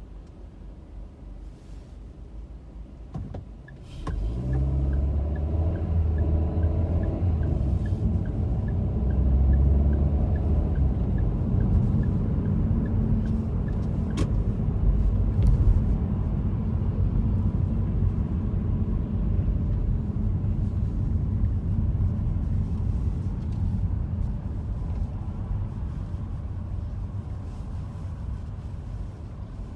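A car waiting quietly at a stop, then about four seconds in it pulls away and the engine and road noise rise to a steady low rumble while driving, easing off near the end. A faint regular ticking runs through the first half.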